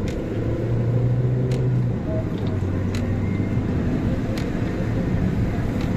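Car engine running steadily, its low hum stepping in pitch about one and two seconds in, with a few sharp ticks.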